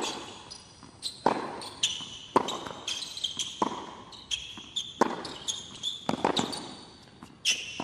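Tennis rally on a hard court: racket strikes and ball bounces alternating about every half second. Short squeaks of tennis shoes on the court come between them.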